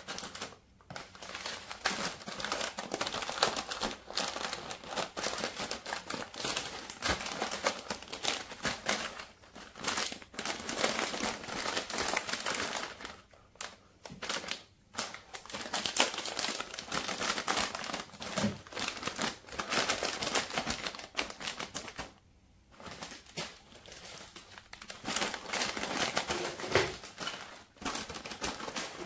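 Clear plastic food bags filled with nuts and cookies crinkling and rustling as they are handled and packed into a drawer, with two short pauses.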